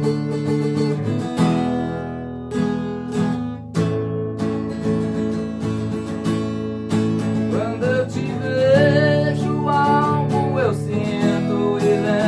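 Acoustic guitar strummed chords, with a man's voice coming in singing about eight seconds in.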